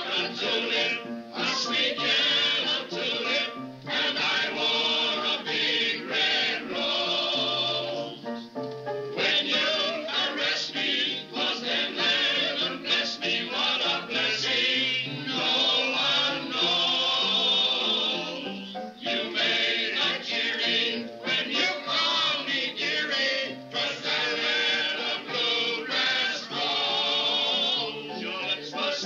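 A mixed group of men and women singing a song together in chorus to upright piano accompaniment, with held notes wavering in vibrato. It is heard through a 1930s film soundtrack.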